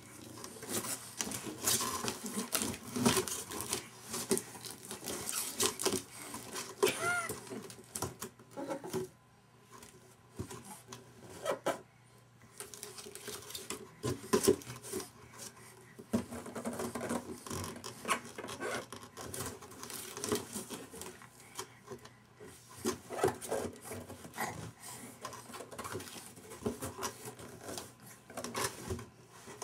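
An empty cardboard diaper box slapped, shoved and tipped by a baby's hands, with irregular hollow pats, knocks and scraping on carpet. A brief baby vocal sound comes about seven seconds in.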